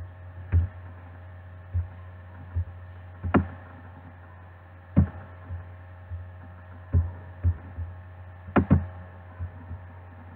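About a dozen soft knocks and clicks at irregular intervals, one a quick double, over a steady low electrical hum.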